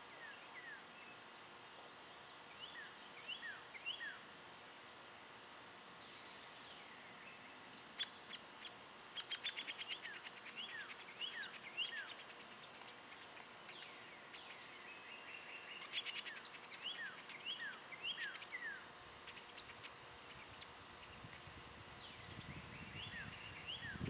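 Wild birds calling with short, falling chip notes, repeated on and off, with sharp clicks in quick succession about eight to twelve seconds in and a single loud click at sixteen seconds, the loudest sounds.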